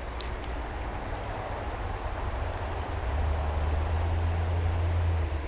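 Shallow creek water running steadily. A low rumble grows louder about halfway through, and there is one sharp click near the start.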